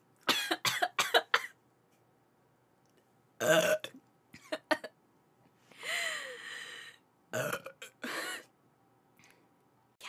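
A woman burping after drinking carbonated soda: a string of short throaty bursts, then one longer burp about six seconds in whose pitch rises and falls, followed by a few more short ones.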